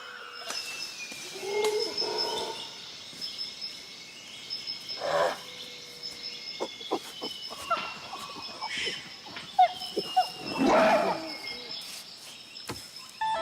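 Outdoor nature sounds: birds calling with long, slowly falling whistles over a steady high-pitched drone, with several louder, harsher animal calls and scattered clicks.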